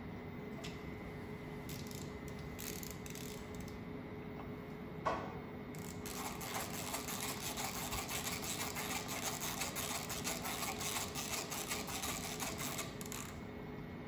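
Hand ratchet driver clicking rapidly from about six seconds in until near the end, winding a locking cap down onto a grill's gap adjuster. A single knock comes about five seconds in, over a steady low hum.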